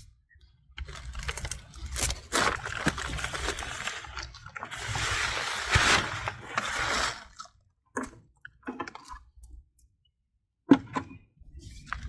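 Loose soil being tipped out of a potato grow bucket and dug through by hand: crunching and rustling with scattered sharp knocks, thinning out to a few knocks and a short pause in the second half.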